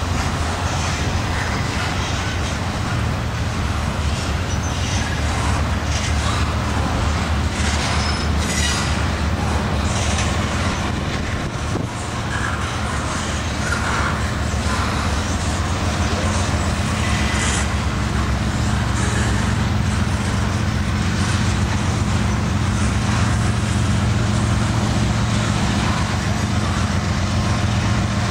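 Diesel locomotives of a Canadian Pacific intermodal freight train approaching, with a steady low engine drone that grows slightly louder near the end, over the rumble and clatter of steel wheels on rail.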